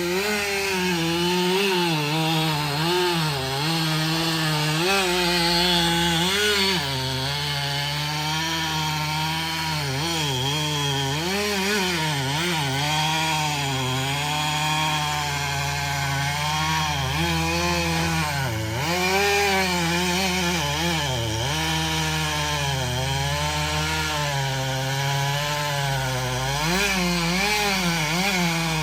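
Two-stroke chainsaw cutting through oak wood, its engine pitch repeatedly dipping and rising as the chain bites and bogs under load.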